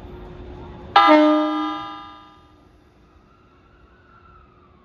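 E231-series electric train's horn, one short blast about a second in that starts suddenly and fades away over about a second and a half, sounded as the train departs.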